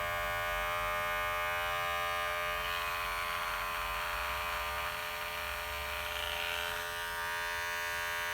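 Cordless hair clipper running steadily with a buzz, its worn blade-drive piece just replaced; still not fully silent, which the repairer puts down to the worn motor and shaft tip.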